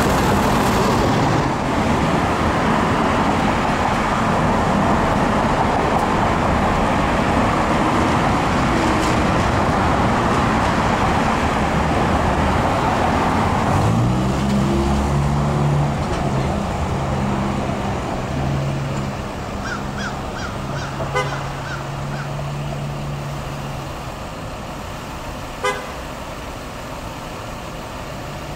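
Road traffic passing an intersection, a steady rush of tyres and engines. About halfway through it gives way to the steady low hum of an idling truck engine, with a few faint, short high chirps and two sharp clicks later on.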